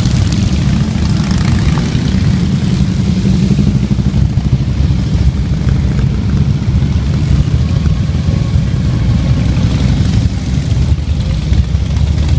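A procession of Harley-Davidson motorcycles riding slowly past one after another, their V-twin engines making a loud, steady low rumble.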